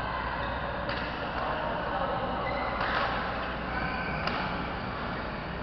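Indoor badminton hall din: several sharp racket hits on shuttlecocks, the loudest about three seconds in, over distant voices and a steady low hum.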